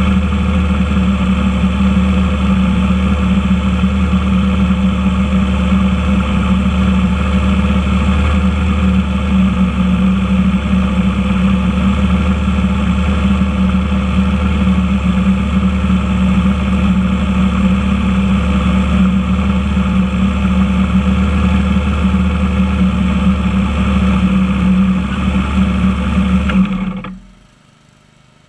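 Engine idling steadily at a constant pitch close to the microphone, then switched off about 27 seconds in, cutting out abruptly.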